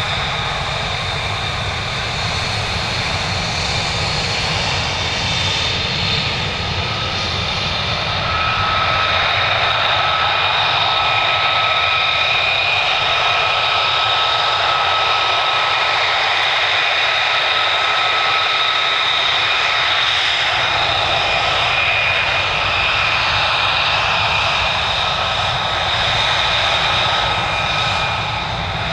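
Lockheed Martin F-35A Lightning II jet fighters taxiing, their single Pratt & Whitney F135 turbofan engines at taxi power: a steady deep rumble with a high whine in several pitches over it, growing a little louder about eight seconds in.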